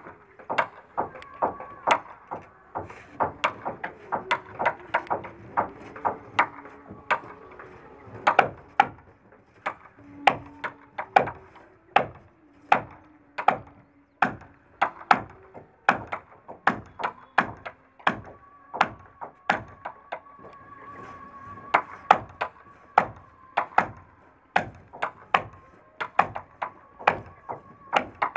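Carpentry on a wooden boat: repeated sharp knocks of hand tools on the timber planks, about one to two a second at an uneven pace.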